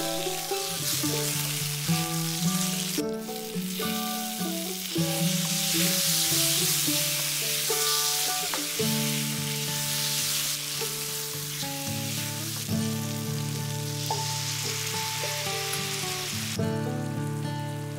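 Potato chunks sizzling in hot oil with cumin seeds in a metal pan, stirred with a wooden spatula. The sizzle cuts off near the end.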